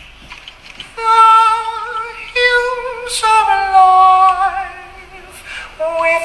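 A beatboxer singing a high, wavering melody with vibrato, starting about a second in. He holds long notes, steps up once, then slides slowly downward and fades. A new phrase starts near the end.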